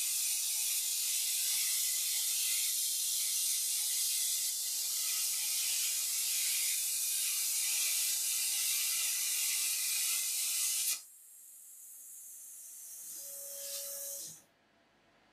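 CNC plasma cutter torch cutting sheet steel: a loud, steady hiss of the arc and cutting air that cuts off suddenly about eleven seconds in. A quieter hiss follows and swells for a few seconds, with a brief steady tone near its end, before it stops.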